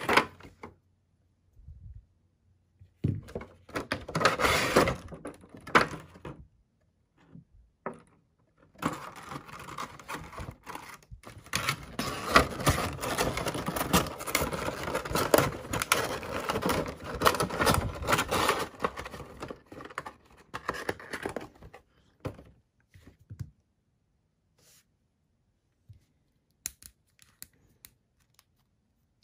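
Cardboard box and clear plastic insert of a Funko Pop vinyl figure being handled and opened: rustling, scraping and clicking of the packaging. A short stretch comes a few seconds in and a longer one of about thirteen seconds follows, then it goes mostly quiet, with a few light taps near the end.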